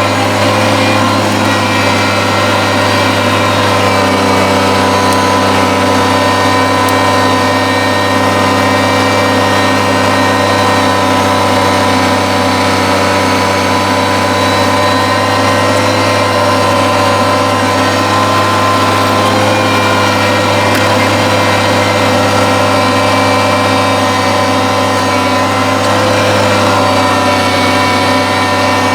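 Kubota compact tractor's diesel engine running steadily at a constant working speed, with its front-mounted snowblower running.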